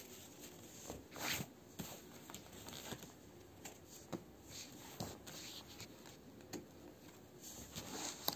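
Faint rustling and sliding of a tarot deck being shuffled and handled by hand, in short scattered swishes, the clearest about a second in.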